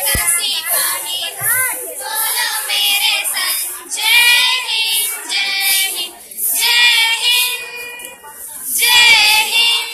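A group of young girls singing a song together, in phrases of about a second with short breaks between them.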